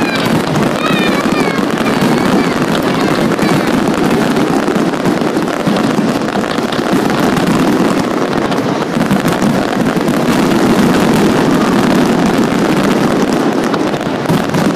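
Fireworks display: a loud, steady rumble and crackle of many shells bursting close together, without a pause.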